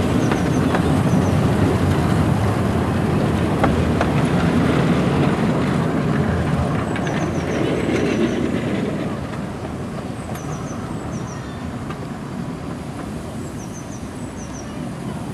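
A 15-inch gauge miniature passenger train rolling over the track with a steady rumble and a few sharp wheel clicks. The rumble falls away after about nine seconds as the coaches draw off.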